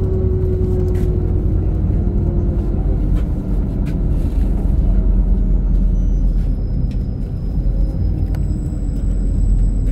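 LiAZ 5292.67 city bus with its Weichai WP7NG280E51 natural-gas engine running on the move, heard from inside: a steady low rumble of engine and road noise, with a whine that sinks slowly in pitch over the first few seconds. A faint thin high tone joins in during the last few seconds.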